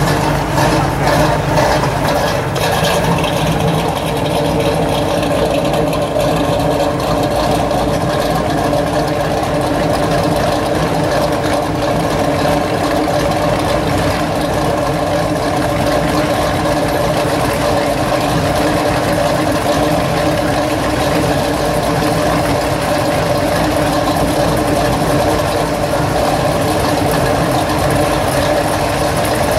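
Classic cars and hot rods idling past at a crawl one after another, their engines giving a steady low exhaust rumble with no revving.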